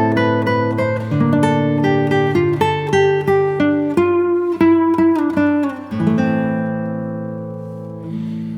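Background music played on plucked strings, most likely an acoustic guitar: a slow melody of single plucked notes, then a chord that rings out and fades slowly from about two-thirds of the way in.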